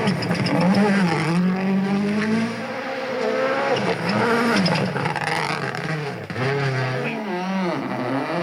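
Rally car engine revving hard, its pitch dropping and climbing again several times as the car brakes, shifts and accelerates.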